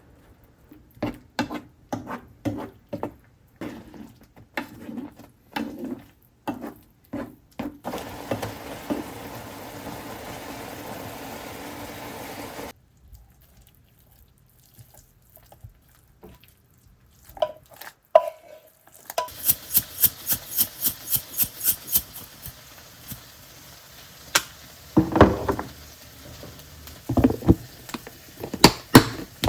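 Kitchen cooking sounds: utensils clinking and knocking against dishes and a pan, with a steady hiss of a few seconds partway through. After a short quiet gap comes a quick run of clicks, then a few more knocks near the end.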